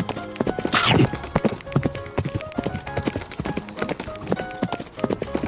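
Cartoon background music with a quick clicking, clip-clop-like beat and short held notes, with a brief whoosh about a second in.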